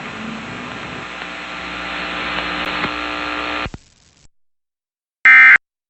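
Steady hiss and hum left over from the emergency alert's voice channel, cutting off suddenly about three and a half seconds in. After a second of silence comes one short, loud burst of EAS end-of-message data tones, the first of the warbling digital bursts that close the alert.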